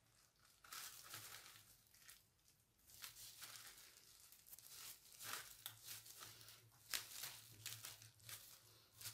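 Faint, irregular crinkling and rustling of thin disposable plastic gloves as hands handle and press a round cardboard disc. A faint low hum runs underneath.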